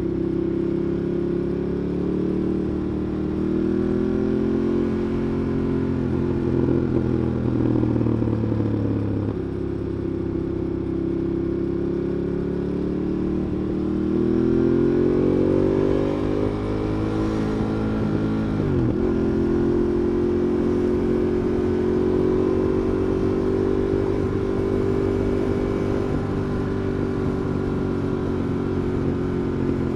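Ducati Monster 821's L-twin engine pulling a motorcycle along, its pitch rising twice under throttle and falling back in between, with a brief sharp dip in engine pitch about two-thirds of the way through before it runs steady again.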